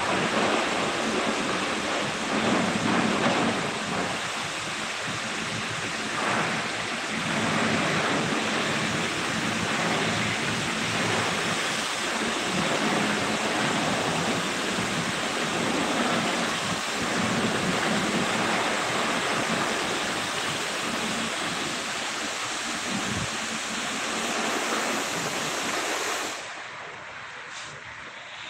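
High-pressure washer jet spraying water against a pickup truck's body: a steady hiss and splatter that drops away sharply about two seconds before the end.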